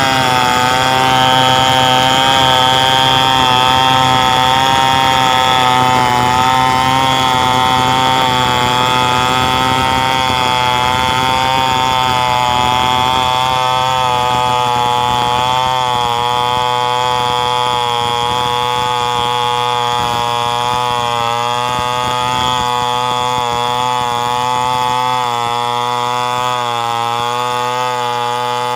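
Stihl 070 two-stroke chainsaw running continuously while milling a coconut-palm trunk into a beam, its engine note wavering slightly in pitch.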